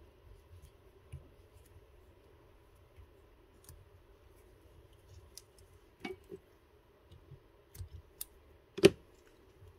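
Small handling sounds of fly tying: scattered light clicks and taps from the vise and tools while a marabou plume is wrapped along a hook shank and tied off, the sharpest click a little before the end, over a faint steady hum.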